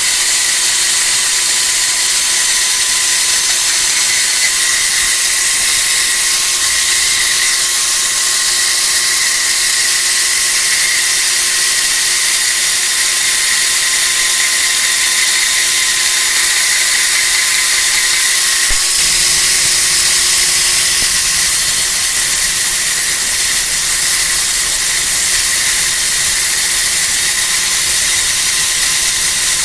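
An electric power tool working steel bed-frame metal runs continuously with a steady whine and a hissing noise, as from an angle grinder. A low rumble joins about two-thirds of the way through.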